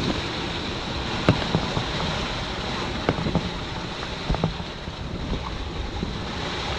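Steady wind and sea noise aboard a small sailing yacht under way at sea, with wind buffeting the microphone and a few sharp knocks here and there.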